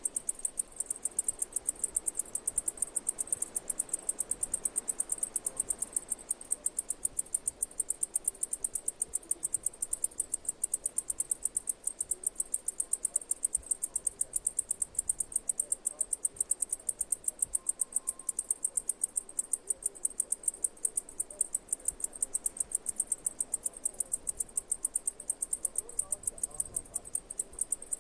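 Insect chirping: a fast, even, unbroken train of high-pitched pulses.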